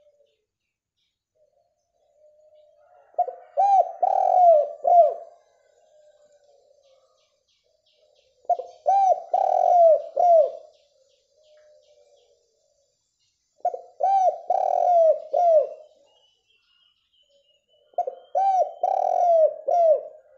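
Spotted dove (derkuku) cooing: four phrases about five seconds apart, each a quick run of short notes around a longer drawn-out coo, with soft low coos between them.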